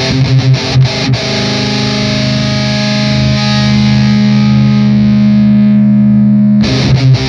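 Distorted electric guitar through an Electro-Harmonix Nano Metal Muff pedal: a fast picked riff, then about a second in a chord left ringing with long sustain for about five seconds, its treble slowly fading, before the fast riff comes back near the end.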